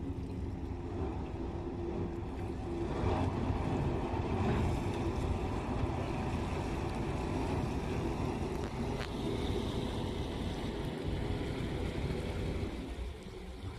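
Tugboat's diesel engine running as the tug passes close by: a steady low rumble with an engine hum, loudest a few seconds in and dropping away near the end.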